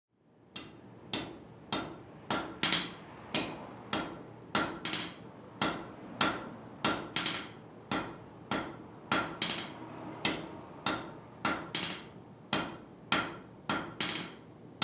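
Blacksmith's hammer striking on an anvil in a steady rhythm, a little under two blows a second, each blow ringing, some followed closely by a lighter tap.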